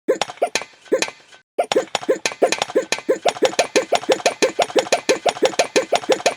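A string of short, ringing, pitched taps, like a cartoon sound effect. A few come spaced out at first, then after a brief pause they run on steadily at about five a second.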